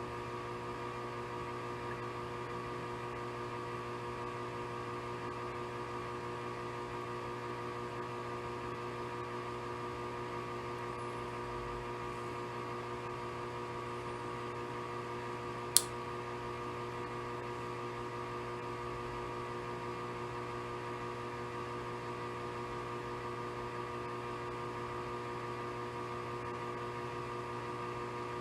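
Steady background hum made of several steady tones over a light hiss, with one sharp click a little past halfway.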